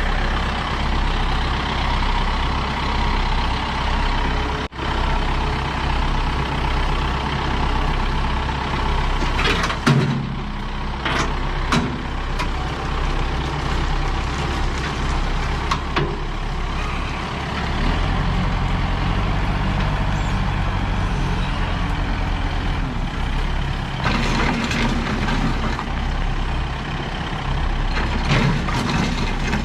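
Heavy diesel truck engine running steadily while the truck moves, its low note shifting about halfway through. Several short hisses come about a third of the way in and again near the end.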